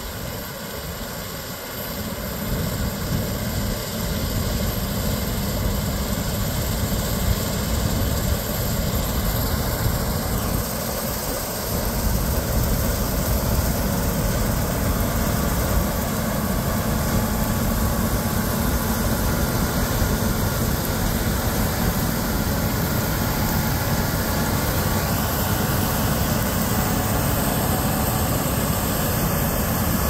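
Gleaner S96 combine harvesting, its six-cylinder 8.4-litre twin-turbo diesel and threshing machinery making a steady heavy drone with a high whine. It grows louder about two seconds in and again about twelve seconds in as the machine comes closer.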